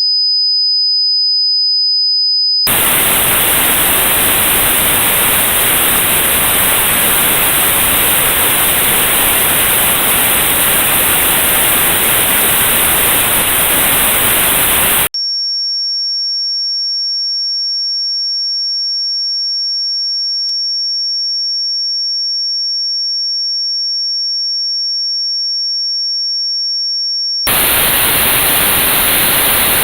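Tinnitus test signals: a steady, very high-pitched pure test tone for about the first three seconds, then notched white noise, a hiss with a band removed around that pitch, for about twelve seconds. Then another steady pure tone, a little higher, for about twelve seconds, and the notched white noise returns near the end.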